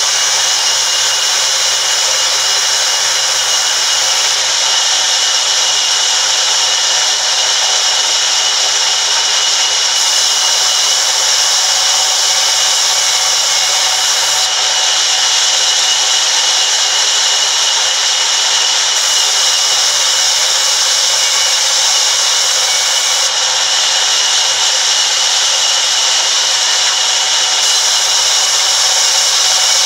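Sawmill band saw running and ripping wooden planks fed along its table, a loud, steady, high-pitched whine and hiss that does not let up.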